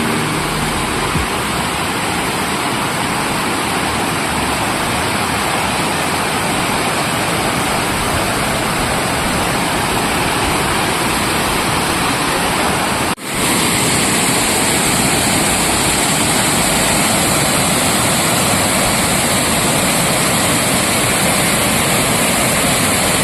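Loud, steady rush of water falling at a waterfall. About thirteen seconds in it drops out for an instant and comes back with a brighter hiss.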